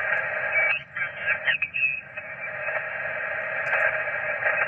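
Yaesu FT-857D shortwave transceiver's speaker hissing with 20-metre band noise on upper sideband as the dial is turned down the band. About a second in, the hiss dips and a brief, garbled, off-tune sideband voice warbles through before the noise returns.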